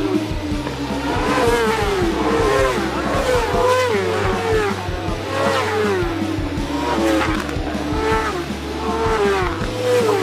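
Racing motorcycle engines running hard on a road circuit, their pitch repeatedly rising and falling as the riders rev and change gear.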